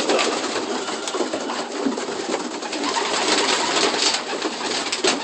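Racing pigeons in a loft: flapping wings and scuffling with cooing.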